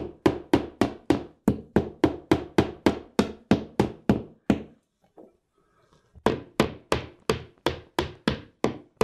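Claw hammer tapping cable staples into wood to fasten an electrical cord, in quick even strokes about three a second. The strokes stop for about a second and a half midway, then start again.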